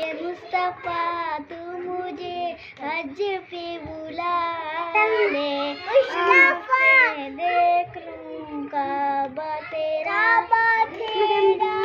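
A young girl singing a naat, an Urdu devotional song, in a child's high voice with long held notes.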